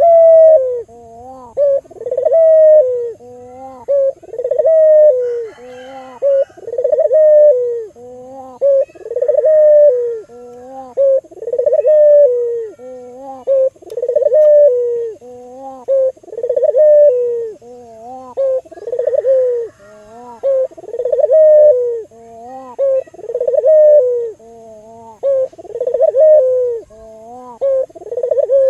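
Albino Barbary dove (local puter) cooing over and over, a rising-then-falling coo phrase repeated about every one to two seconds, with a short low note between phrases.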